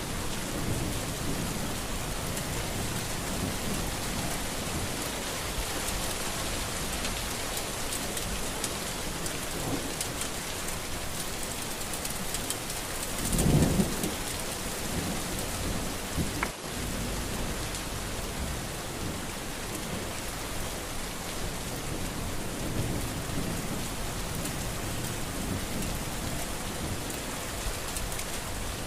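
Steady rain pouring, with a short low rumble of thunder about halfway through and a momentary drop-out in the sound a few seconds later.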